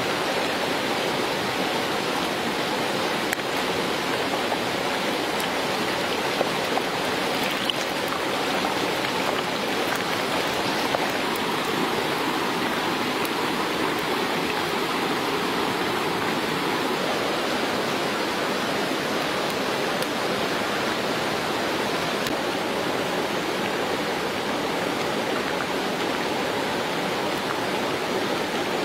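Whole frogs deep-frying in a wok of hot oil: a steady sizzle with a few faint pops.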